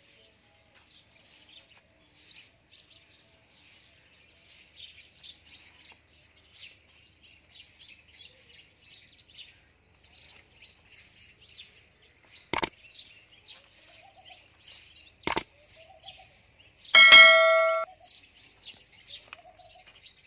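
Small birds chirping continuously. Two sharp clicks come about 12.5 and 15.5 seconds in, then a loud ringing ding lasting just under a second that stops abruptly.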